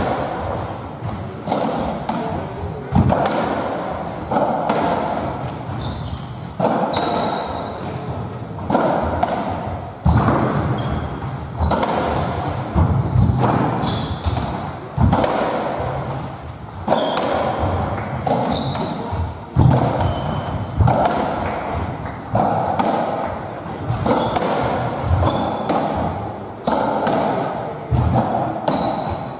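A squash57 (racketball) rally in an enclosed squash court: the ball is struck by rackets and cracks off the walls and floor, a sharp hit about every one to two seconds, each echoing in the court. Short high squeaks, likely court shoes on the wooden floor, come between the hits.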